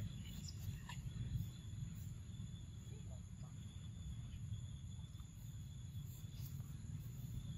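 Faint, steady insect drone: a thin high tone that holds unchanged, over a low steady rumble.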